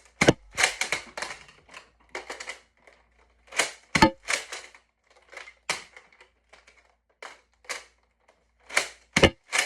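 Plastic clacks and clicks of a toy shotgun blaster that fires foam darts from three-round shotgun shells, being pumped and fired. Three sharper knocks stand out: near the start, about four seconds in, and near the end.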